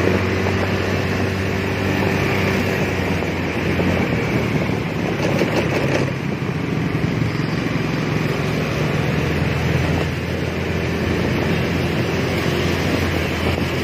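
Small motorcycle engine running steadily while riding along a street, with wind rushing over the microphone.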